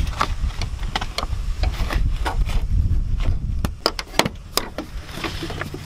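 A run of sharp plastic clicks and taps as a flathead screwdriver and fingers pry the plastic clips of a truck's rubber door wiring boot loose, over a steady low rumble.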